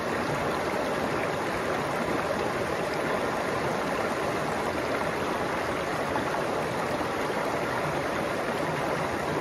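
Shallow mountain stream flowing over a bed of stones and boulders: a steady, even babble of water with no breaks.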